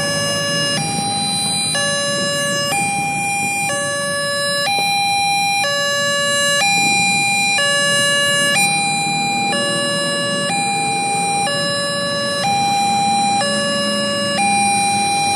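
Railway level-crossing warning alarm sounding: an electronic two-tone signal switching between a lower and a higher tone about once a second. It warns that a train is approaching and the crossing is closed. Under it runs the low sound of waiting motorbike and car engines, and a passing train near the end.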